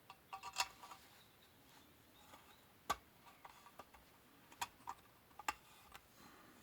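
Faint, sharp metallic clicks and clinks of hand tools on the chainsaw muffler's screws as they are tightened down. There is a cluster in the first second, then single clicks about three seconds in and twice near five seconds.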